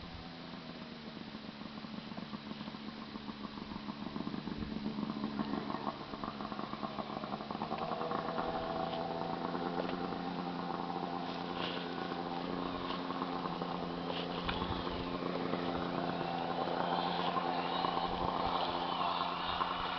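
Snowmobile engine running at a steady pitch, growing gradually louder over the first half as the sled comes down the slope toward the listener.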